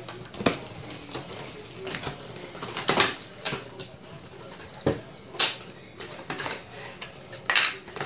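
A cardboard product box being opened by hand: its flaps pulled back and a paper insert handled, giving several sharp crackles and taps, the loudest about half a second and three seconds in.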